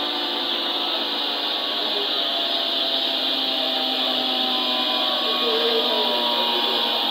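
Sawmill machinery running steadily: an even whirring drone with a high hiss.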